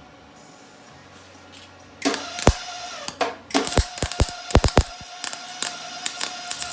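Electric arc welding on a worn snowmobile ski's steel, starting about two seconds in: an irregular crackle broken by sharp pops over a steady hum.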